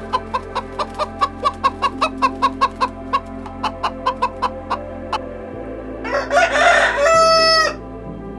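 Chickens clucking in a rapid run of short clucks, about five a second. About six seconds in, a rooster crows once.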